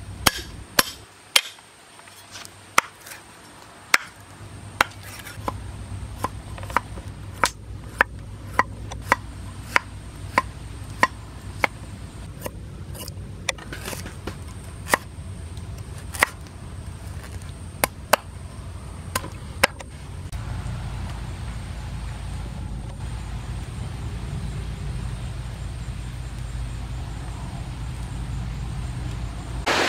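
Knife chopping on a cutting board: single sharp strokes, roughly one a second and irregularly spaced. The chopping stops about two-thirds of the way through, and a steady low rumble carries on.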